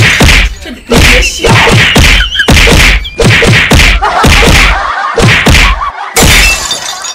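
A rapid run of loud slaps and blows, about two to three a second, from hands hitting a person in a scuffle.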